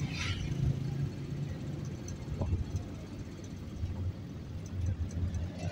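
Low, steady rumble of a car's engine and tyres heard from inside the cabin while driving, with a brief hiss just after the start and another near the end.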